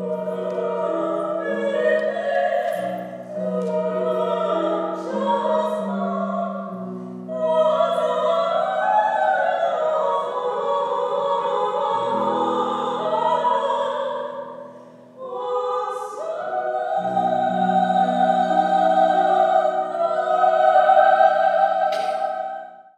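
Operatic soprano singing a duet, her long held high notes over a lower sustained part. The singing breaks off briefly about two-thirds of the way through, then swells to its loudest note near the end and stops abruptly.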